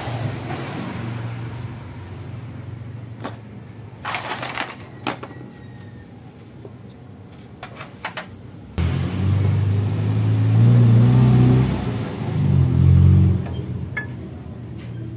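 A few sharp metallic clicks and knocks. Then, about nine seconds in, a loud low motor-like hum starts suddenly, wavers in pitch and loudness for about four and a half seconds, and dies away.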